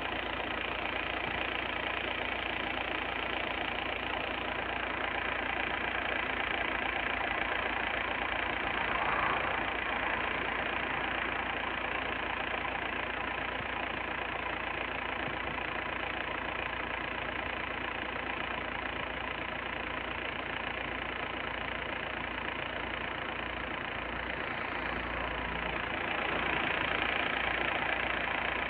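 Steady mechanical drone of a coal-fired thermal power plant running, with faint steady hum tones through it, swelling slightly near the end.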